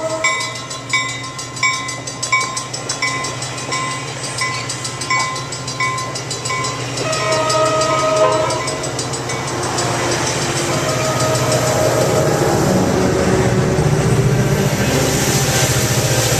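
A passenger train horn's chord cuts off, then a bell dings steadily about once every 0.7 s. Another short horn chord sounds about seven seconds in, then the rumble and rush of the train builds as it passes through the station.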